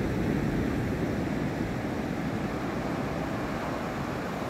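Surf on a flat sandy beach: small waves breaking and washing up the shore, a steady rushing noise.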